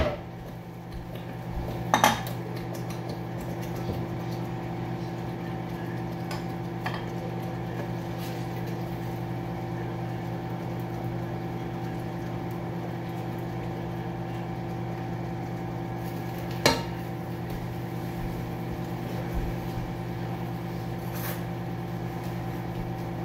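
Cooking utensils clinking and knocking against pots and dishes a handful of times, the loudest knock about two-thirds of the way through, over a steady hum from a running kitchen appliance.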